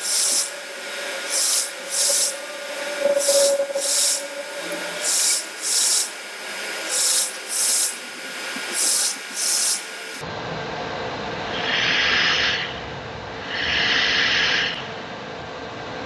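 Anycubic Kobra 2 Neo 3D printer's stepper motors driving the printhead in short, repeated moves as it probes the bed during automatic levelling, about one or two moves a second, over a steady hum. About ten seconds in, the sound changes abruptly and two longer moves follow a couple of seconds apart.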